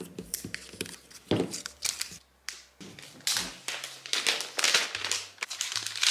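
Unboxing handling noise: crinkling and rustling of packaging, with scattered light taps and clicks as the MacBook Pro and its charger are picked up and handled.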